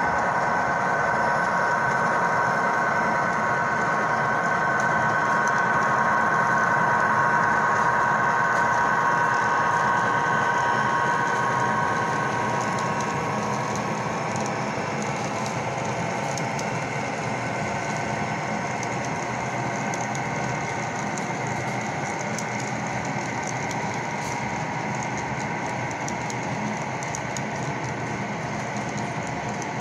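Model Union Pacific DDA40X locomotive running past with a steady pitched hum that fades about twelve seconds in. The train's piggyback trailer flatcars then keep rolling over the track with light, rapid ticking.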